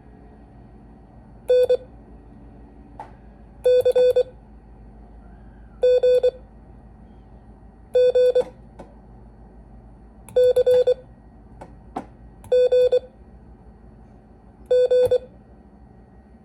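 Morse code tone sent by hand as single letters, seven short groups of beeps about two seconds apart spelling N, C, G, G, C, G, G, part of a copying drill in the letters S, N, C and G.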